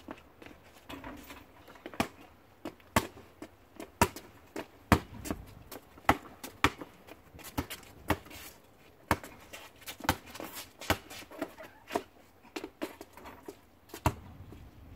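Basketball bouncing on an asphalt driveway as it is dribbled and played: a string of sharp thuds at irregular intervals.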